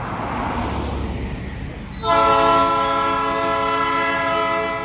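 A car goes by close at hand with a rush of tyre noise, then about two seconds in a locomotive air horn sounds one long blast, a chord of several notes held for nearly three seconds and stopping near the end. A low train rumble runs under it.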